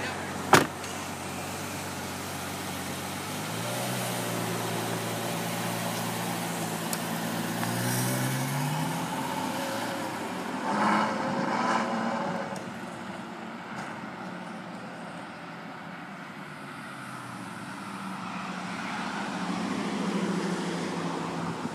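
A car door shuts about half a second in. Then a Ferrari 812 Superfast's 6.5-litre naturally aspirated V12 pulls away, its engine note rising over several seconds with a louder burst of revs. It fades with distance and swells again near the end as the car accelerates away.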